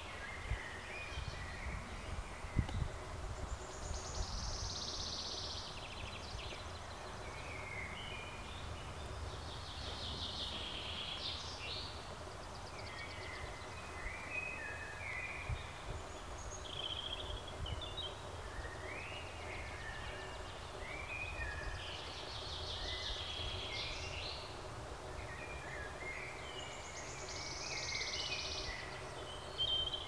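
Woodland songbirds singing, several short repeated phrases and fast trills recurring every few seconds, over a low background rumble.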